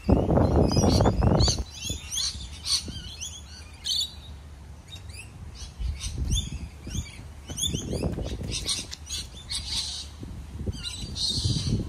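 Small birds chirping over and over in quick rising notes, with a low rumble during the first second and a half.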